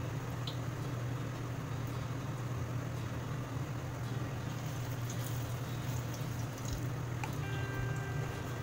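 Cassava fritters frying in hot oil in a wok: a steady sizzle with a few small pops, over a steady low hum.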